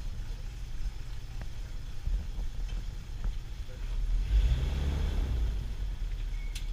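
Low, steady rumble of a tour boat's engine, swelling louder about four seconds in.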